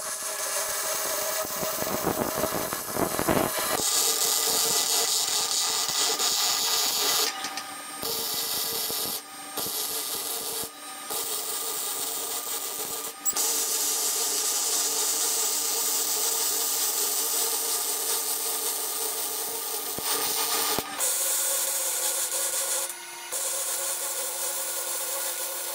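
Wire-feed welder arc crackling steadily as it runs beads joining steel brace plates to a truck frame rail, stopping briefly several times between welds.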